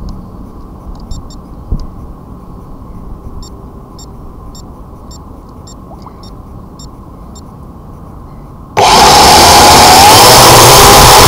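Low rumble with soft, evenly spaced ticks, then about nine seconds in the Syma W8X quadcopter's motors start and its propellers run with a loud, steady whir, heard close up through the drone's own camera.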